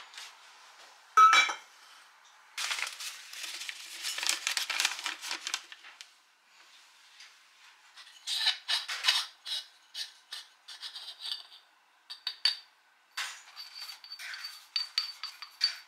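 Kitchen clatter while making pour-over coffee: a sharp clink about a second in, then stretches of rustling and scraping and scattered clicks of dishes and utensils. Near the end, ground coffee is tipped from a coffee mill's grounds cup into a paper filter in a ceramic dripper, with a run of quick light taps that ring.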